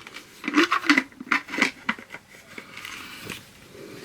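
Packaging and items being handled on a table: a quick run of short clicks and rustles, then a longer rustle a little after two seconds in, as the next item is unwrapped.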